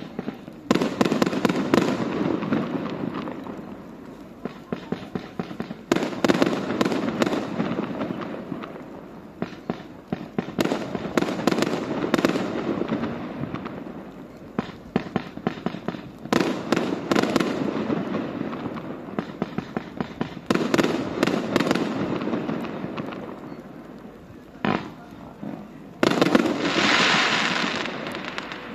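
Fireworks display: aerial shells bursting in volleys every four to five seconds. Each volley is a cluster of sharp bangs followed by a dense crackling that fades over a few seconds.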